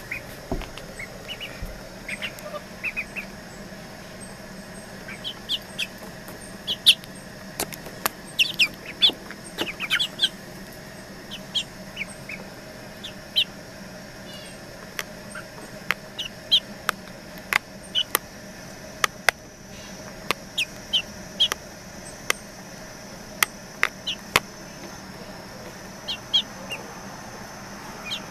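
Young chicken peeping in short, high chirps scattered through, mixed with sharp taps of its beak pecking on wooden deck boards.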